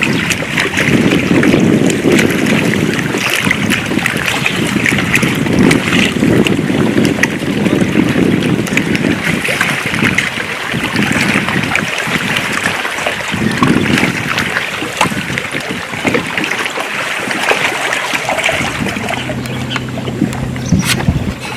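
Wind buffeting the microphone over water lapping against a fishing kayak, rising and falling in gusts. A low steady hum comes in near the end.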